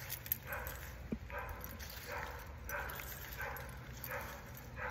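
A dog barking steadily, about seven barks in a row at a little more than one a second, over a low steady background rumble.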